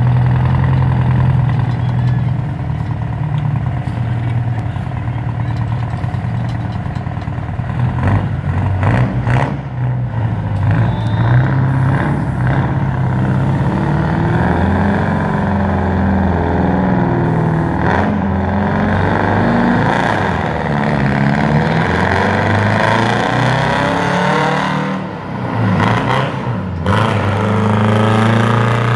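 Diesel semi-truck tractors drag racing: the engines run loud and steady at first, then pull hard, their pitch climbing and dropping again and again through the gear changes.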